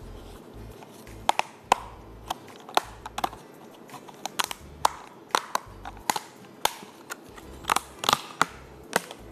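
Airtight plastic ice-cream containers being handled and opened: a run of sharp, irregular clicks and knocks.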